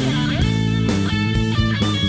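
Music: a guitar-driven band track with a steady beat.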